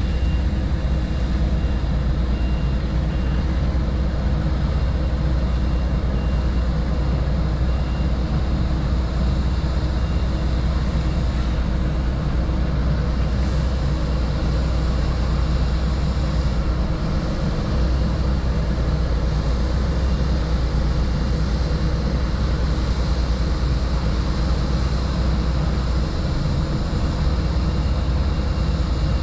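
Flatbed HGV lorry's diesel engine running at low, steady revs with a deep drone while the lorry reverses slowly.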